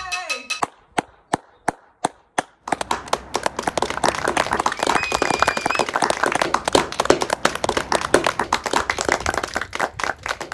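A few sharp single knocks, about three a second, then many people clapping together at different paces, with a short whistle about halfway through.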